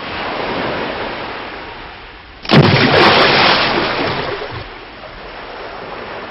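A steady rushing noise; about two and a half seconds in, a sudden loud crash of noise that fades away over the next two seconds into a softer rushing.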